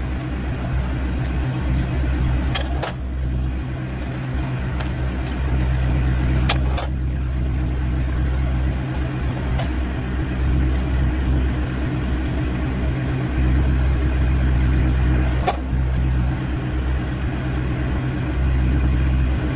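Farm tractor engine running steadily, with a few scattered sharp knocks.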